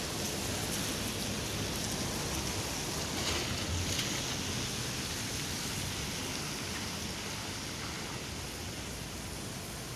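Steady hiss of a rain-soaked street, with a car's tyres swishing past on the wet road about three to four seconds in.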